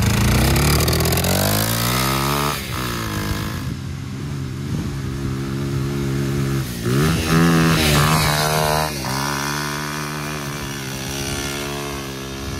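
Go-kart's single-cylinder pit-bike engine under throttle, its pitch climbing as it revs up and then dropping and climbing again several times as the kart is driven and shifted.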